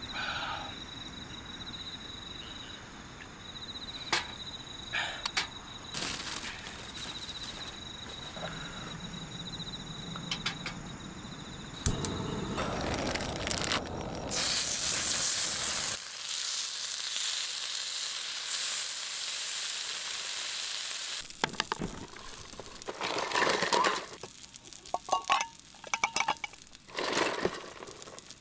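Crickets chirping steadily with a few scattered clicks; about twelve seconds in a sharp knock, then gyoza sizzling loudly on a hot iron griddle plate for several seconds. Near the end, a run of short clicks and knocks.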